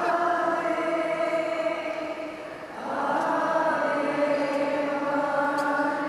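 Many voices singing a hymn together in long held notes. The sound dips briefly about two and a half seconds in before the next phrase starts.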